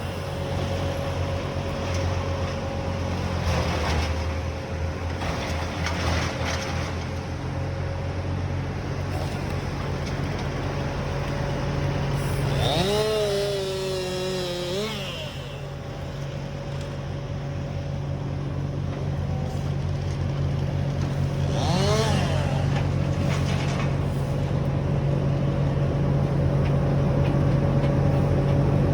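Small engine running steadily, slowly getting louder, with a voice calling out twice over it, the first call lasting about two seconds.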